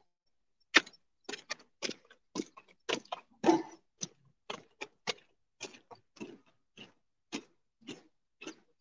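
Boots of marching cadets striking the ground, a string of sharp steps about two a second, slightly uneven.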